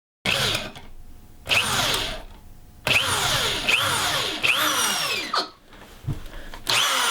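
A power tool run in a series of short bursts, its pitch sweeping down within each burst.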